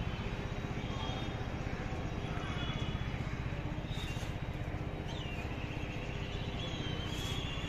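Steady outdoor city background heard from a rooftop: a low rumble of wind and distant traffic, with faint high whistling chirps about five seconds in and again near the end.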